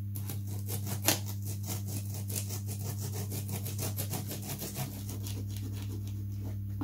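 Fine-toothed razor saw cutting through balsa wood ribs in quick short strokes, about six a second.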